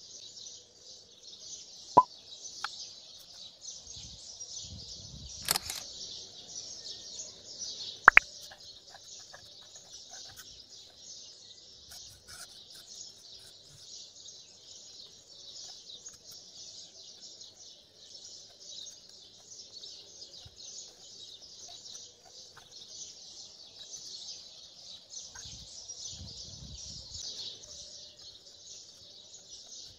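A continuous, dense chorus of birds chirping, with a few sharp clicks standing out above it: one about two seconds in and a quick double click about eight seconds in.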